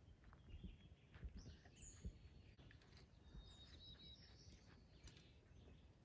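Near silence: quiet outdoor ambience with a few faint, distant bird chirps.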